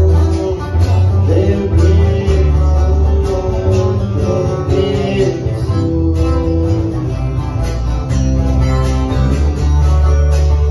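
A band playing an instrumental passage of a regional Mexican song: plucked lead guitar lines over strummed acoustic guitar and a deep, steady bass line, with no vocals.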